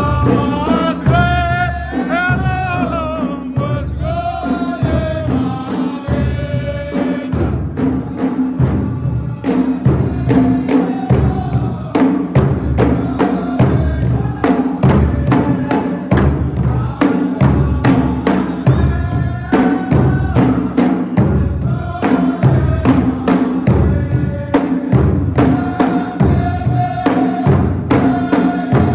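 Saudi folk troupe performing: a singer's wavering melodic line over drums, then a steady, fast drum rhythm with chanted group singing.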